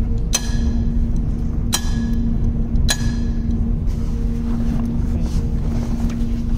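Steady background machine hum with noise, broken by three sharp ringing clinks in the first three seconds.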